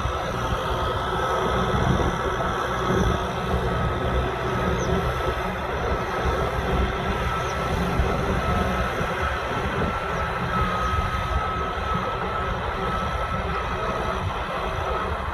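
Kubota M6040SU tractor's diesel engine running steadily under load while plowing through mud, with a steady high-pitched whine over the engine noise.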